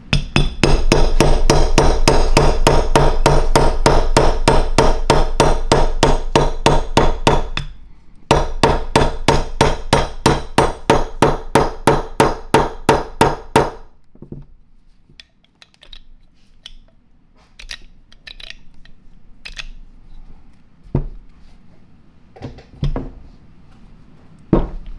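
Small hammer tapping a roll pin into the handle housing of an Ingersoll-Rand 2850MAX air impact wrench: two long runs of quick, even taps, about five a second, with a brief pause around 8 seconds, stopping at about 14 seconds. After that come scattered light clicks and a few single knocks of the metal housing being handled.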